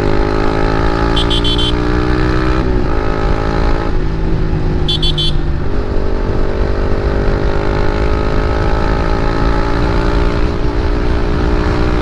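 Motorcycle engine pulling under acceleration, its pitch climbing steadily with two gear changes, about three and six seconds in. A vehicle horn beeps in quick pulses twice, with wind rushing on the microphone throughout.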